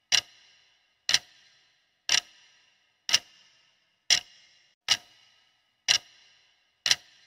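Clock-tick sound effect marking a countdown timer: one sharp tick each second, each with a short ringing tail.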